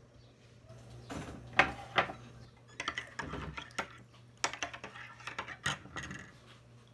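Hands handling small kitchen things on a glass tabletop: irregular clicks, clinks and light clatter, with two sharper knocks about a second and a half and two seconds in.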